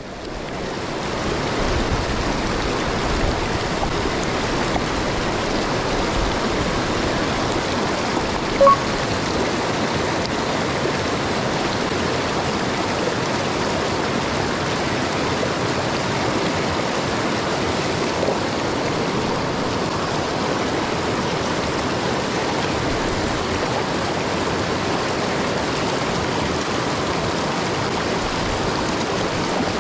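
Mountain stream rushing steadily, fading in over the first second or two. A single short, sharp blip sounds about nine seconds in.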